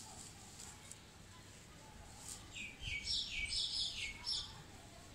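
A bird calls with a quick run of about half a dozen high chirping notes, starting about halfway through. Faint rustling of dry grass mulch being handled runs underneath.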